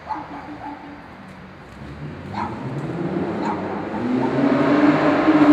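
A small dog barking a few times from inside a closed parked car, while a vehicle's running sound in the car park grows steadily louder through the second half and becomes the loudest thing.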